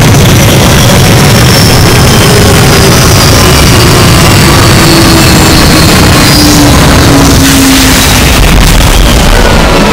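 Loud, steady rumbling roar with a few faint tones slowly falling in pitch: a simulated descent sound effect.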